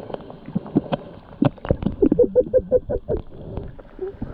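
Sea water sloshing and splashing around the camera, with irregular clicks and knocks and a quick run of short pitched blips about two seconds in.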